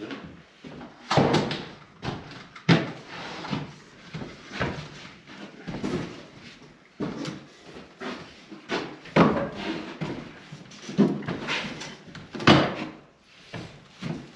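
Irregular wooden knocks and clunks of carpentry work, with boards and trim pieces bumping and being set down, one or two knocks a second with no steady rhythm.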